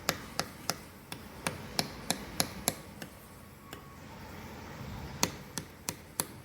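Sharp light taps or clicks, about a dozen, in quick runs of two or three a second with a pause of a couple of seconds in the middle.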